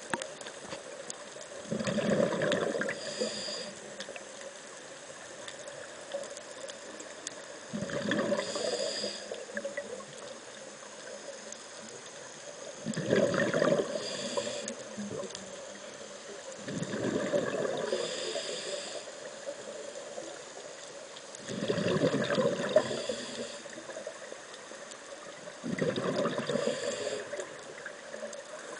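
Scuba regulator exhaust bubbles heard underwater: a diver's exhaled breath bubbling out in six gurgling bursts, one every four to six seconds, each lasting about a second and a half, with a faint steady hiss between breaths.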